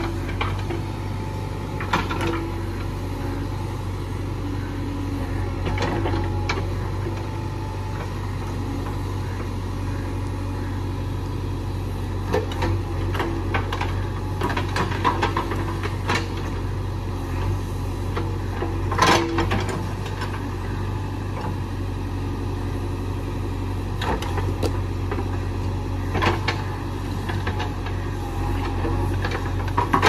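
JCB 3DX backhoe loader's diesel engine running steadily while the backhoe arm digs and swings, with scattered knocks and clanks from the working arm and bucket.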